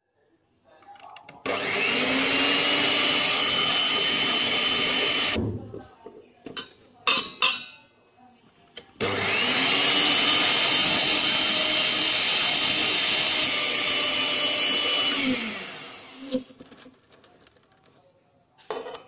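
Electric hand mixer running twice for a few seconds each, its twin beaters whisking eggs and sugar in a bowl. It gives a steady motor whine that rises as it spins up and falls as it winds down. A few short knocks and clinks come between and after the runs.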